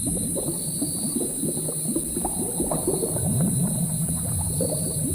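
Thick liquid bubbling in a cauldron at a rolling boil: a dense, irregular stream of bubbles popping over a steady high hiss.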